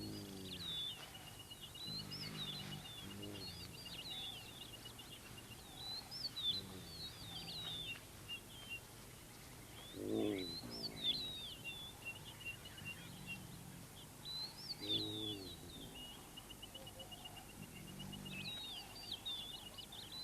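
Savanna ambience: birds chirping and a fast, even trill running in two long stretches, with short low animal calls every few seconds. The loudest of these low calls come about halfway through and again about three-quarters of the way in.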